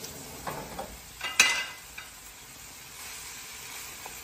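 Vegetables in sauce sizzling in a skillet over a gas flame while being stirred, with a few light clicks and one sharp metallic clank about a second and a half in.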